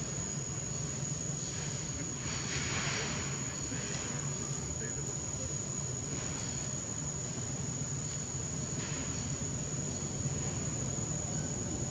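Steady high-pitched drone of insects in the forest, with a low steady rumble underneath and a few hissy swells that come and go.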